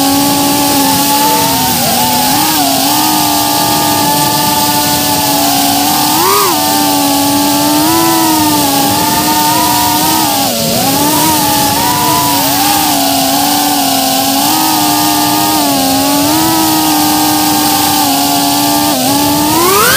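Brushless motors and propellers of a 3-inch FPV quadcopter running in flight, a steady high whine whose pitch dips and swells with the throttle. Near the end the pitch rises steeply.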